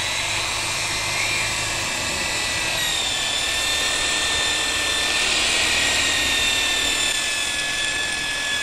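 Handheld electric drill running steadily as its twist bit cuts into a metal plate: a constant high motor whine that sags slightly in pitch as the bit loads up.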